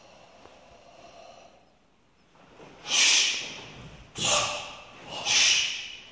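Three forceful, breathy exhalations from martial artists striking in paired sparring, each about half a second long, the first about three seconds in and the others roughly a second apart.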